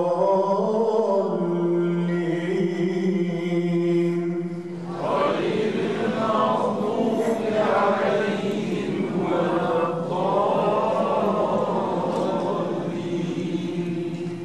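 Solo male voice chanting Quran recitation in maqam Ajam. It holds one long steady note for about four seconds, then moves into melodic phrases that rise and fall.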